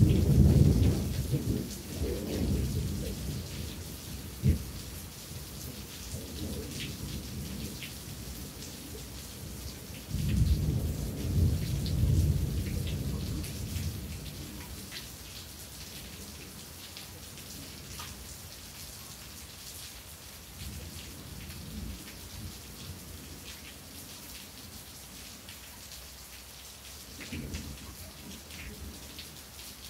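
Thunderstorm: steady rain with raindrops ticking, under rolls of thunder. A loud rumble comes right at the start and fades over about four seconds, a second roll comes about ten seconds in, and a faint one comes near the end.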